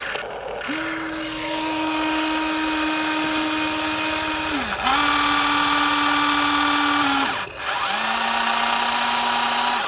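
Small electric motor of an RC construction vehicle whining in three runs, each spinning up and winding down, with short breaks between them.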